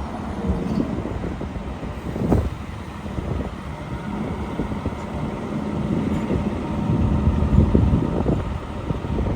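Street traffic: motor vehicle engines running and passing, with a short thump about two seconds in. No siren or air horn sounds.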